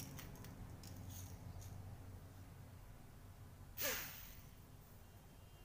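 Faint, near-quiet room sound with a few light clicks and taps as the small homemade drone is set down on the concrete floor, then a short breathy noise with a falling pitch about four seconds in. No steady whine from the drone's motors is heard.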